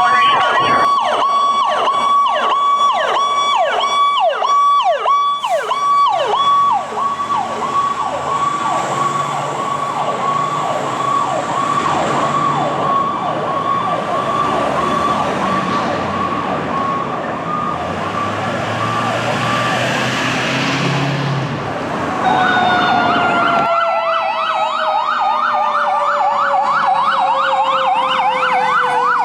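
Fire apparatus sirens on a responding run: an electronic yelp siren repeating about twice a second over a steady tone, fading into a low truck engine rumble. About two thirds of the way in a second siren comes in with faster sweeps and a tone that slowly falls in pitch.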